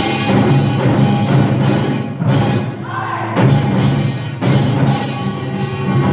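Samulnori percussion ensemble playing a dense, driving rhythm: kkwaenggwari small gongs, janggu hourglass drums, buk barrel drum and jing gong. The playing thins out briefly about halfway through, then the full ensemble strikes back in.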